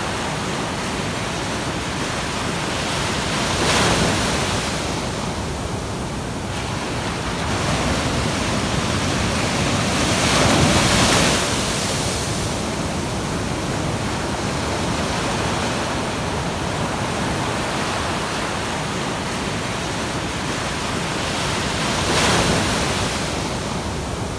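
Ocean surf breaking on a beach: a steady wash of water, with louder wave crashes about four seconds in, around eleven seconds, and near the end.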